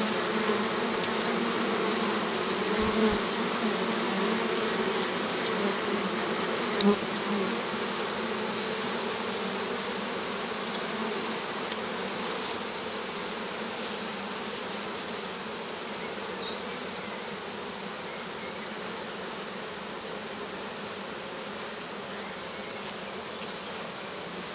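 Many honeybees buzzing at a hive entrance: a steady, dense hum that slowly grows fainter. A single sharp click about seven seconds in.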